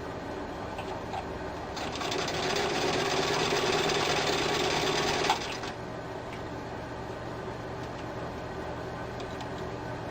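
1948 Singer Model 66 sewing machine stitching at speed under its electric motor for about three and a half seconds, starting about two seconds in, then stopping with a sharp click.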